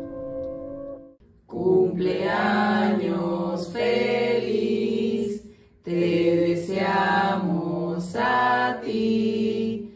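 Music with a singing voice, sustained chant-like vocals in two phrases of about four seconds each, after about a second of softer instrumental music.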